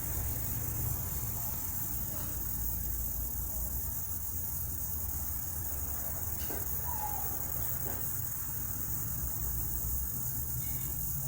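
An unidentified insect's continuous high-pitched buzzing, steady and unbroken, over a low steady rumble.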